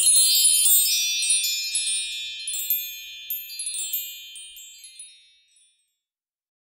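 A cascade of high, glittering chime tones, many notes struck in quick succession and ringing over one another, loudest at the start and dying away over about five seconds: a wind-chime-like sound effect for a logo reveal.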